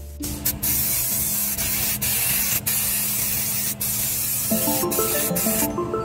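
A spray hissing at the brake in one long burst, broken by a few brief pauses, cutting off sharply near the end. Background music comes in over it.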